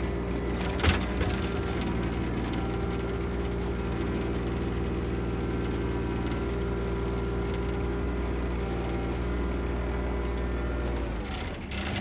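A digger's diesel engine running at a steady speed, with a sharp click about a second in. The engine fades out near the end.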